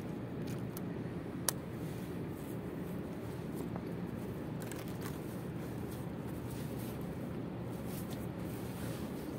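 Steady low engine hum and rumble from harbour vessels, with one sharp click about a second and a half in.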